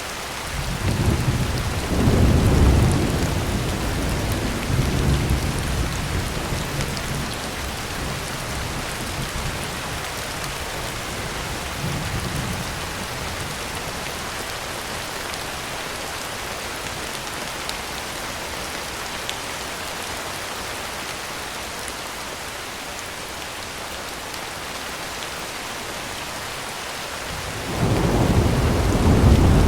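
Heavy rain drumming steadily on a tin roof, with rolls of thunder: a long rumble starting about a second in, a faint one near the middle, and another building near the end.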